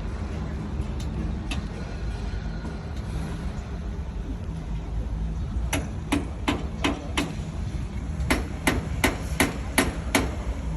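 A hammer striking metal in two quick runs of blows, five and then six, about three a second, after two lighter knocks near the start. A steady low engine rumble runs underneath.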